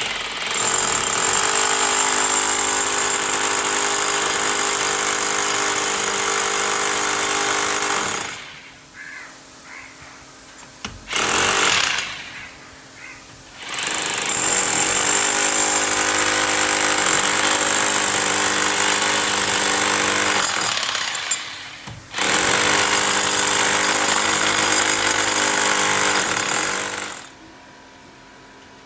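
Electric hammer drill boring into a wall, running in four bursts: two long runs of about eight seconds each, a brief one of about a second, and a final run of about five seconds, with short pauses between them.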